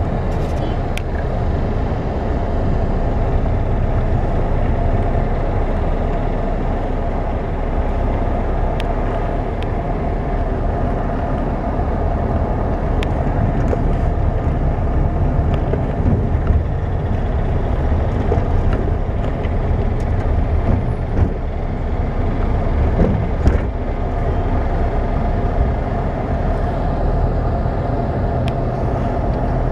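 Steady engine and tyre noise of a moving car heard from inside the cabin, with a few light clicks scattered through.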